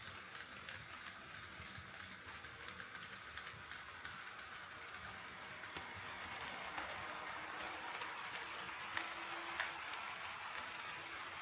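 HO scale model train running on KATO Unitrack: a steady rolling hiss of wheels and motor with light ticks over the rail joints. It grows slowly louder, with two sharper clicks near the end.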